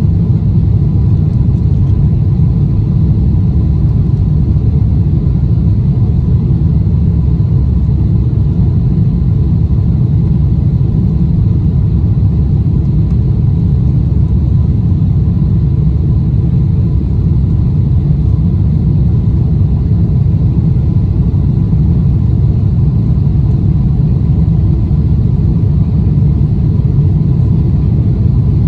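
Cabin noise of a Boeing 747-8i: a loud, steady low rumble of engines and air that does not change, with a faint steady high tone above it.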